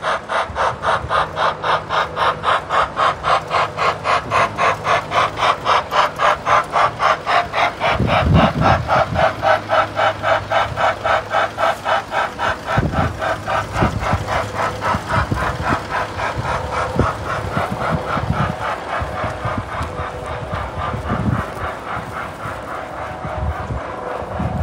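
Park road train passing, with a rhythmic steam-locomotive-style chuffing of about three puffs a second that slowly fades as it moves away. Low thuds on the microphone come and go through the second half.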